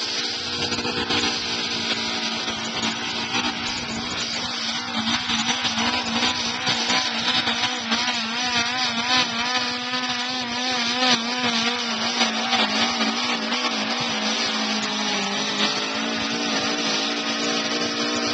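Modified four-cylinder garden tractor engine running flat out under load as it drags a weight-transfer pulling sled, a steady high-pitched drone held at near-constant revs. Its pitch wobbles for a few seconds around the middle of the run.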